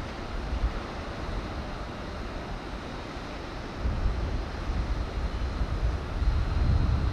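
Wind buffeting the microphone outdoors: a fluttering low rumble over a steady hiss, growing stronger about four seconds in, with a faint steady high tone underneath.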